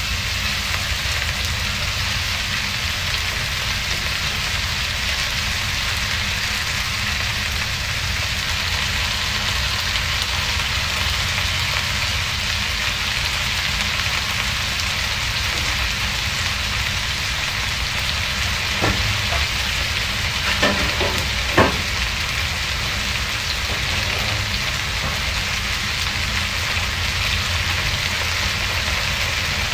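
Squash, onion and freshly added string beans sizzling steadily in a frying pan, with a few short clicks about two-thirds of the way through.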